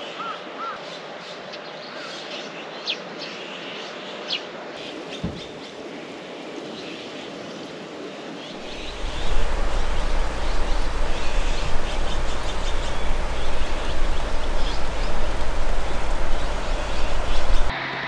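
Birds chirping and calling over a quiet mountain ambience. About halfway through, heavy rain sets in as a loud, steady hiss with a low rumble, and it stops abruptly near the end.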